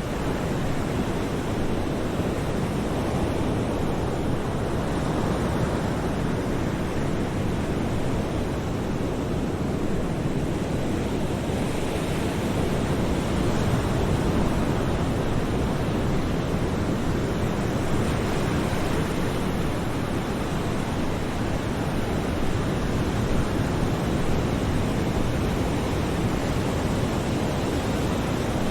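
Ocean waves breaking in a steady, continuous wash of surf, swelling a little about halfway through.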